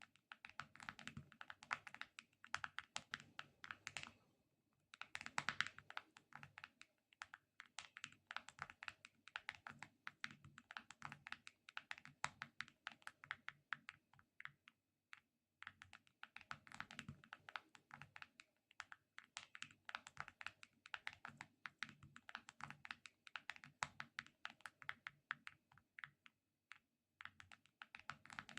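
Close-miked ASMR object sounds: rapid, crackly clicks and light taps in dense runs, broken by short pauses, like fast typing.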